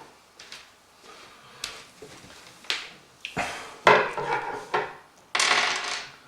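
Knocks and clatter of a computer power supply being handled into a PC case, with the loudest clunk a little before the middle and a scraping slide of under a second near the end.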